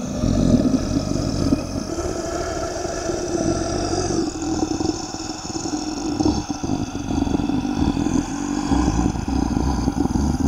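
A low, continuous roaring rumble that carries on without a break.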